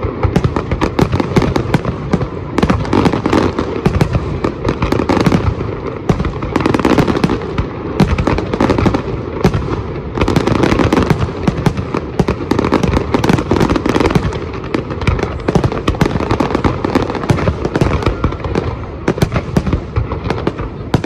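A fireworks display going off continuously: a dense, unbroken run of crackling and popping reports, many a second, with louder bangs scattered throughout.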